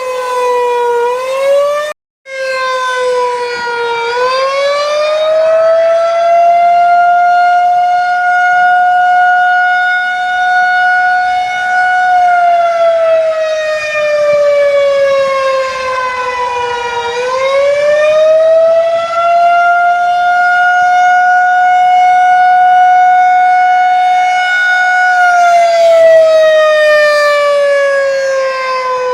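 Federal 2001-130 electromechanical tornado siren on 48-volt DC, sounding an attack signal on 8/5 timing. It winds up to full pitch and holds for about eight seconds, then coasts down in pitch for about five seconds. The cycle repeats twice, with a brief cut-out about two seconds in.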